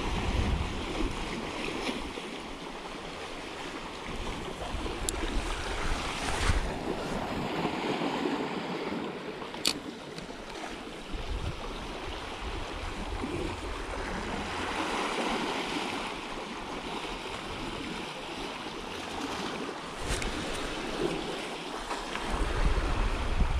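Small sea waves washing and breaking over rocks, swelling and ebbing, with wind buffeting the microphone now and then. A single sharp click sounds about ten seconds in.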